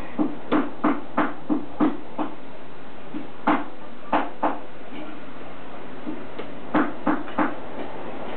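An excited baby in a plastic bouncer seat making short, sharp sounds in quick runs of about three a second, with pauses between the runs.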